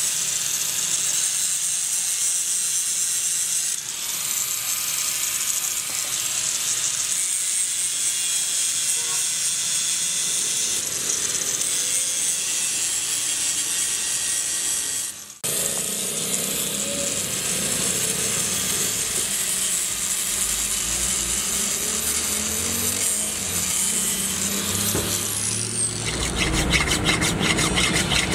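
Electric grinder running steadily against the metal of an air impact wrench part, with a high whine and a short break about halfway. Near the end the whine falls as the tool spins down, and then comes a run of quick, even file strokes on the wrench's metal housing.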